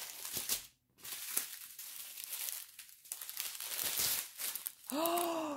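Small clear plastic zip bags of diamond-painting drills crinkling and rustling as they are picked up and sorted by hand, with a brief drop-out about a second in.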